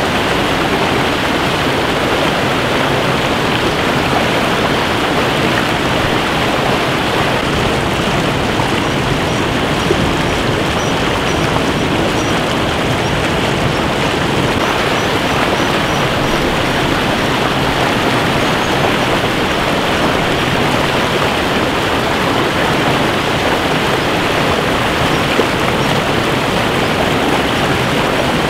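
Fast rocky stream rushing over boulders, a loud, steady roar of water. Faint, high bird peeps come through in short runs now and then.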